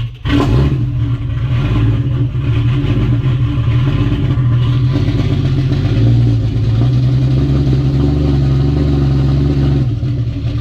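Turbocharged Toyota 2JZ-GTE straight-six engine running steadily, with a brief dip in the sound at the very start.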